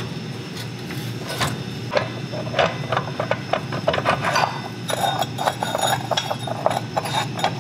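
Irregular metallic clicks, clinks and scrapes of a wrench and parts being worked on the crankshaft end of a Subaru Robin 9 hp engine while the torque converter is fitted. The sounds get busier about five seconds in, over a steady low hum.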